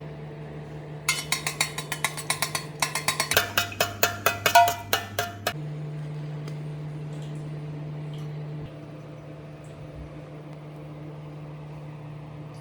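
A quick run of ringing metallic taps, about six a second, lasting about four seconds over a steady low hum; the hum carries on alone afterwards and drops a little in level later on.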